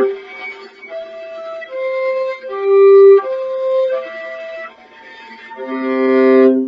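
Viola played as ghost notes: the left-hand fingers only touch the strings lightly, so a short passage comes out as thin, pure harmonic tones that step up and down in pitch over a steady lower tone, rather than as full stopped notes. A fuller, louder note swells in near the end.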